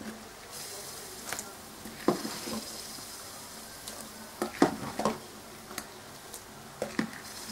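Boiled potato dumplings being scooped from a pot of hot water with a plastic slotted spoon and tipped into a bowl of cold water: scattered light knocks of the spoon on the pot and small splashes, over a faint steady hiss.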